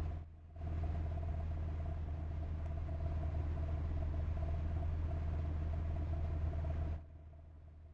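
A steady low mechanical hum with a faint steady higher tone over it. It dips briefly about half a second in and drops away about seven seconds in.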